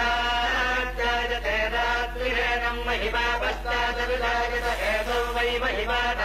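Vedic chanting by a group of male priests reciting the Vedas in a continuous, sing-song recitation, over a steady low hum.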